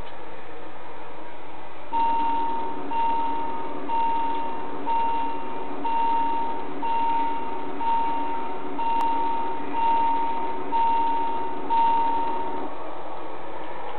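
Model railway level-crossing warning signal on an LGB garden-scale layout: an electronic beep repeating about once a second, eleven tones each just under a second long, warning that the crossing barriers are coming down. A steady hiss runs underneath throughout.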